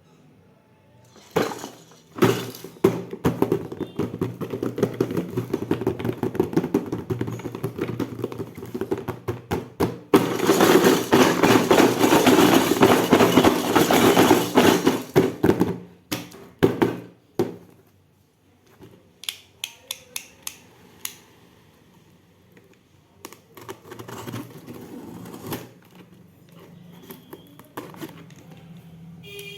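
Unboxing of a miniature plastic toy kitchen set. For the first half, packaging is handled with dense crackling and crinkling, densest and loudest in the middle. After that come scattered light clicks and taps of small plastic pieces.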